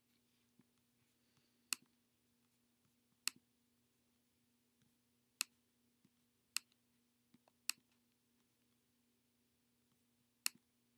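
Six scattered single clicks from a computer pointing device as it is clicked through a document, over a faint steady hum.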